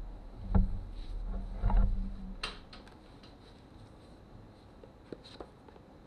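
Handling noise: two loud knocks in the first two seconds over a low hum, then a sharp click and a few light ticks as a TIG welding torch and welding helmet are picked up and readied.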